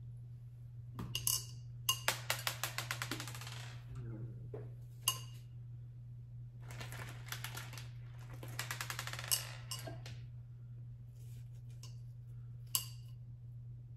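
Small hard decorative pieces dropping into a glass vase, making fast runs of clicks about ten a second, twice, with a few single taps between, over a steady low hum.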